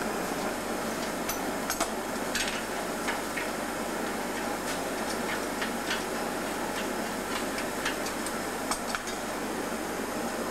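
Steady rushing roar of a glassworks furnace, with scattered sharp clicks and ticks as hot glass on a blowpipe is worked by hand.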